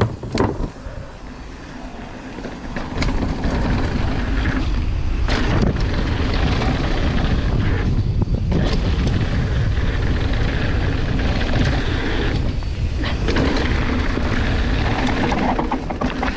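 Mountain bike ridden fast down a dirt trail: wind buffeting the microphone over the rumble of tyres on dirt, with scattered knocks and rattles from the bike. A couple of sharp knocks come right at the start, and the noise gets louder about three seconds in.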